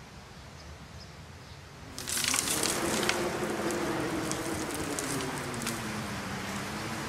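Faint hiss, then about two seconds in a sudden wash of wind-like noise with crackles begins, under low held musical tones.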